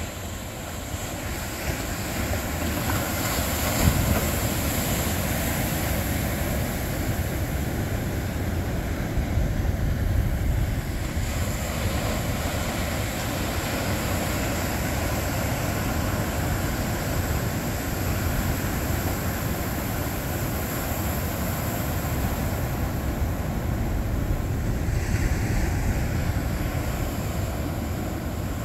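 Ocean surf breaking and washing in, a steady rush that swells a few times as waves break, with wind rumbling on the microphone.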